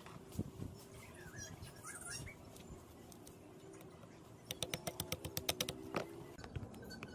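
Light metallic clicks and taps of a steel cotter pin and pliers being worked into a pump's pivot rod, with a quick run of sharp clicks lasting about a second and a half, starting about four and a half seconds in.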